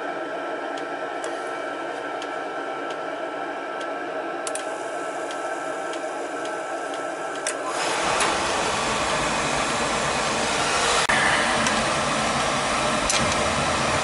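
Oil burner on a Weil-McLain boiler restarting after a control reset: the burner motor and blower run steadily with a faint whine, then about halfway through the oil flame lights off and a deeper, louder combustion rumble joins and holds.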